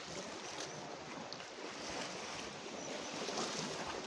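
Water rushing steadily, with a few faint splashes.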